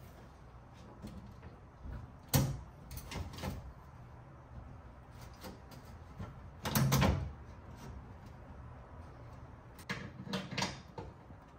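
Scattered knocks and clatters of the Ford Maverick's underbelly shield plate being held up and fitted against the truck's underbody: a knock about two seconds in, a few more just after, the loudest clatter about seven seconds in, and a quick run of knocks near the end.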